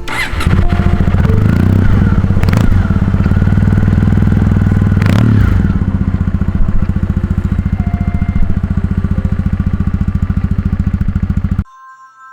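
Motorcycle engine running with a steady low throb. Two sharp knocks come about 2.5 and 5 seconds in, and the sound cuts off suddenly just before the end.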